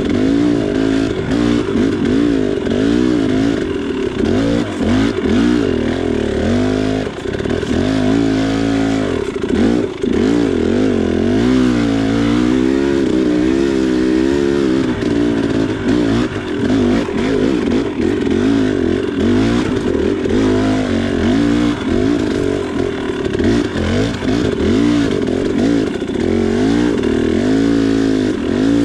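2019 KTM 300 XC's two-stroke single-cylinder engine being ridden on the throttle, its pitch rising and falling continually as the rider rolls the throttle on and off.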